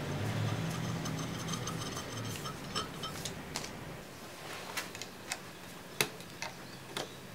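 A screwdriver working small screws on cast-iron parts of a 1927 South Bend lathe: scattered light metal clicks and ticks, the loudest about six seconds in. A low hum in the first half fades out by about four seconds in.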